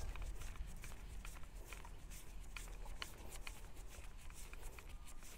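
Gloved hands screwing together the threaded steel parts of a dynamic cone penetrometer: faint, irregular small clicks and scrapes of metal handling.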